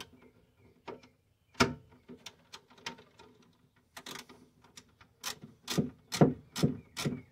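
Sharp metallic clicks and knocks as the bolts holding a vintage tube television chassis are worked loose by hand. Single clicks come first, then a quicker run of about three or four clicks a second near the end.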